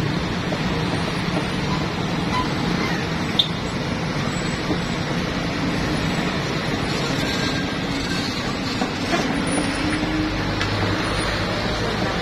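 Mixed traffic on a steep hairpin climb: heavy trucks, buses and motorcycles running steadily in low gear, with an engine note rising briefly about nine seconds in and a short click about three and a half seconds in.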